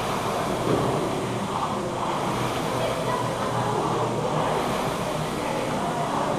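Concept2 air rowing machine's fan flywheel whooshing steadily under hard rowing, swelling with each stroke.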